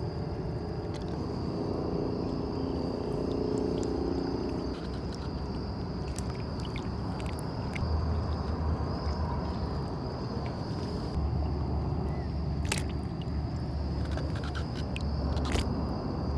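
A steady, high-pitched trill of night insects, with scattered clicks and knocks and low rumbling from fish and gear being handled in a canoe.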